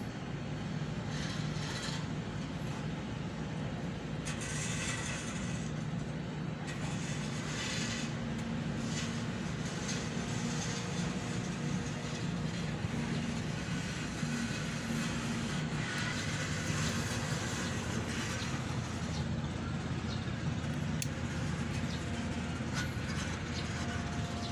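A steady mechanical hum with a low rumble that runs on without a break.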